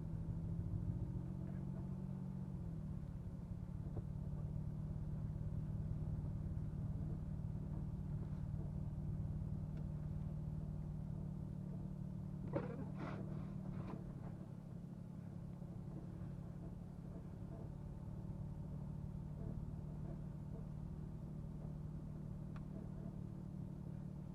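Chrysler 300 AWD running steadily while driving through snow, heard as a low engine hum over a rumble. The engine note shifts briefly two to three seconds in.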